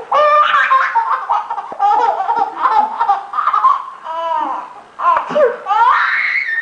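A small child laughing hard in quick runs of high-pitched bursts, breaking off briefly a few times, with a long rising squeal near the end.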